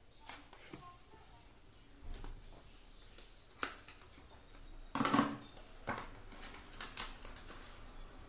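Small scissors snipping through a thin paper card insert, several separate sharp cuts, with paper and plastic packaging rustling in the hands; the loudest is a half-second rustle about five seconds in.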